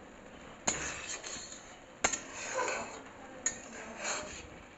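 Three sharp clinks or knocks, about a second and a half apart, each followed by a brief light rattle.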